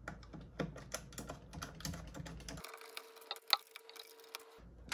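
Irregular light clicks and taps of a small hand tool and screws being handled against the scooter's frame, ready for tightening the screws from underneath, with one sharper click about three and a half seconds in.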